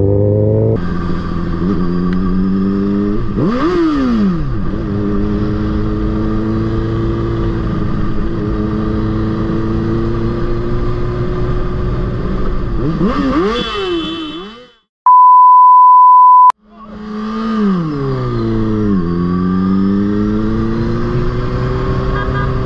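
Sport motorcycle engine running as heard from the rider's position, its revs rising and falling a few times. About two-thirds of the way in, the engine sound cuts out and a steady, high-pitched censor bleep sounds for about a second and a half. The bleep is the loudest thing here, and then the engine sound returns with the revs dropping.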